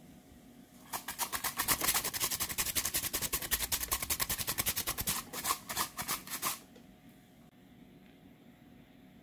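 Cucumber being julienned on a V-blade mandoline slicer: rapid, even scraping strokes, several a second, starting about a second in and stopping abruptly a couple of seconds before the end.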